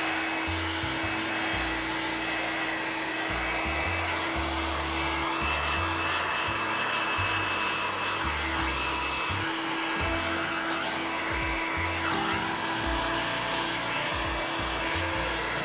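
Electric heat gun blowing steadily, a fan hum with a hiss of air, as it is swept over a plastic scooter footboard. Background music plays under it.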